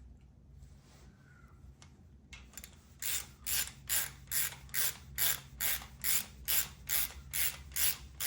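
Hand ratchet wrench clicking in even strokes, a little over two a second, as the ARP camshaft sprocket bolts are run down snug, starting about three seconds in after a quieter stretch.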